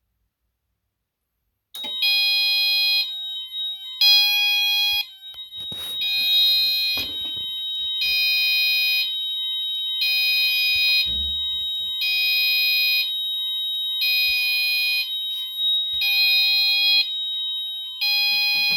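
Fire alarm sounders going off about two seconds in: one sounds a multi-tone blast for about a second every two seconds while another holds a steady high tone beneath it. This is the alarm set off by a detector test.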